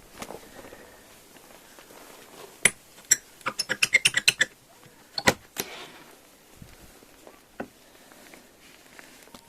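A scatter of sharp clicks or taps: two single ones, then a quick run of about eight, then a few more spaced out.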